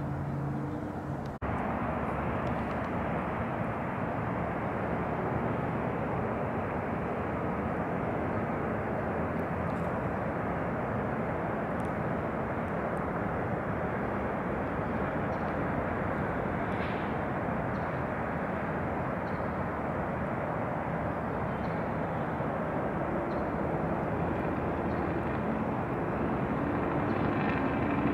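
Steady outdoor rumble of a distant engine, with an engine hum growing a little louder near the end.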